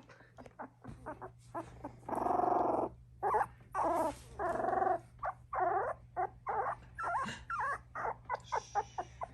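Dachshund puppy vocalizing in a rapid string of short whimpers and longer, drawn-out rumbling cries, purring like a cat; the longest cry, about a second, comes around two seconds in.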